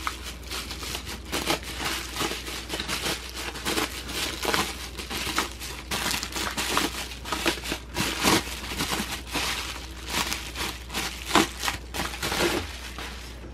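Plastic bubble wrap crinkling and rustling as it is unwrapped by hand, with many irregular crackles throughout.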